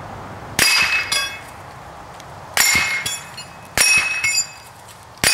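.22 LR bullets striking small steel silhouette plates, each hit a sharp metallic clang that rings on at a few high pitches, followed by a lighter clatter as the plate falls. Three hits come a second or two apart, and a fourth starts at the very end.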